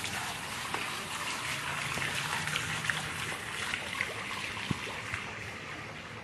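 A steady hiss of running or trickling water, with a few small clicks scattered through it.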